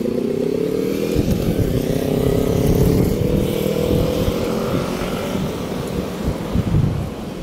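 Road traffic passing close by: a vehicle engine accelerating, its pitch rising steadily over the first four seconds and loudest about three seconds in.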